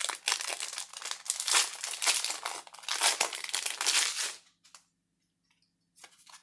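Foil Magic: The Gathering booster pack wrapper crinkling as it is handled and torn open. The crinkling stops about two-thirds of the way in, followed by a couple of brief rustles near the end.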